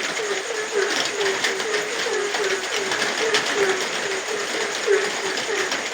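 Frogs calling in a steady chorus, short low croaks repeating about three or four times a second, over the even hiss of falling rain with individual drops ticking close by.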